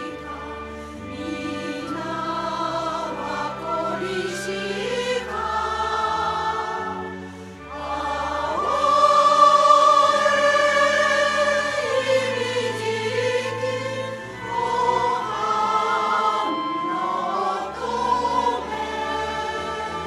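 A choir singing a slow song over instrumental accompaniment, with long held notes, swelling loudest about halfway through.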